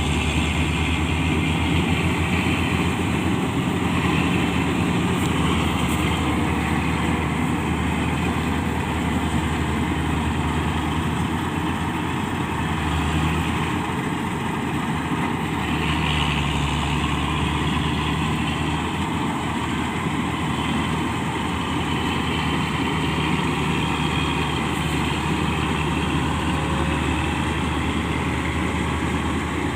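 Preet combine harvester's diesel engine running steadily, a continuous heavy hum with only slight rises and falls.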